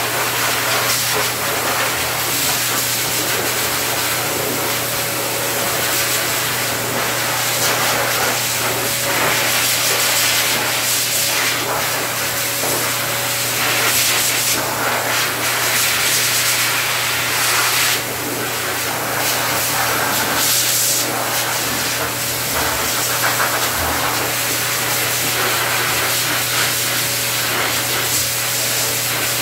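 Hose-type pet blow dryer running continuously, a loud, steady rush of air with a low motor hum, blowing through a curly dog's coat to dry it.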